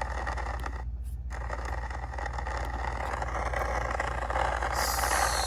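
Old Video 8 home-movie tape playing back its recorded sound: wind rushing in through an open window, with a steady low hum underneath. The sound drops out briefly about a second in, and a high hiss rises near the end.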